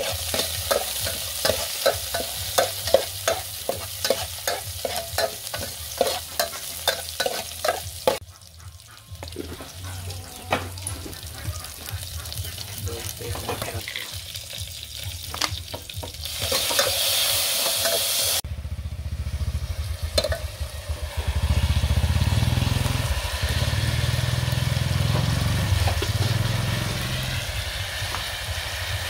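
Chopped aromatics sizzling in a hot aluminium pot while a metal ladle scrapes and clacks against it about twice a second for the first eight seconds. Past the middle comes a short loud hiss as liquid hits the hot pot, and the last third holds a steady low rumble.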